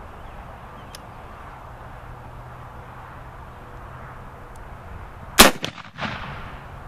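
.54 caliber Lyman muzzleloading rifle firing one shot about five and a half seconds in: a single sharp, loud bang, followed about half a second later by a weaker second bang that trails away.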